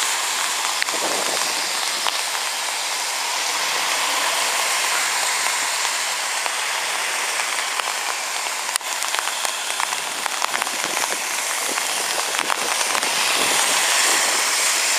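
Steady rushing hiss of fast-flowing floodwater in a swollen creek, with a few faint clicks.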